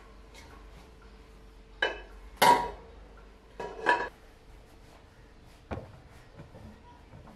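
Metal pressure cooker clanking as it is handled and set on the gas stove: about four knocks with a short metallic ring, the loudest about two and a half seconds in.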